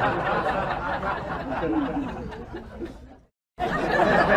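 Murmur of many voices with chuckling laughter, broken by a brief dead silence a little over three seconds in.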